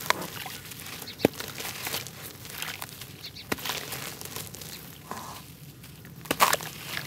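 A block of dry red dirt crunching and crumbling in the hands, with gritty crackle as pieces break off and fall into a basin of water. Sharp cracks come about a second in and around three and a half seconds, and the loudest pair near the end.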